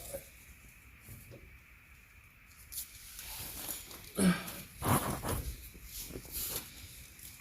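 Metal hand tools scraping and clicking against a truck's steel door as a clip is pried off the inside handle, in irregular bursts starting about three seconds in.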